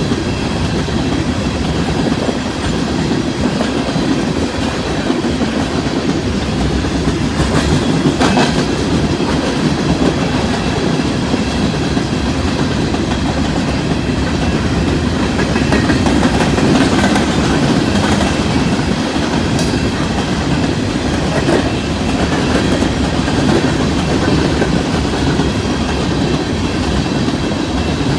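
Empty coal train rolling past: a steady rumble and clatter of steel wheels on the rails, with a few sharp clanks about eight seconds in and again near twenty seconds.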